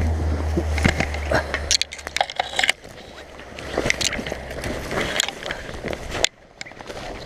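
Dry grass, brambles and twigs rustling, crackling and snapping underfoot and against the hands while pushing through overgrown undergrowth, with many sharp cracks. A low rumble sits under it for the first few seconds and then stops.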